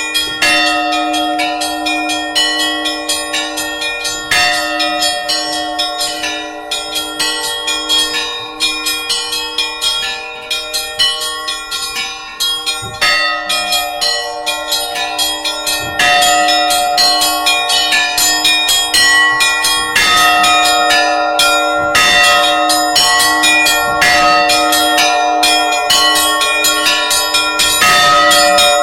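Church bells rung by hand: many smaller bells struck in a fast, rhythmic pattern over the sustained tone of a larger bell. The ringing gets louder about 16 seconds in.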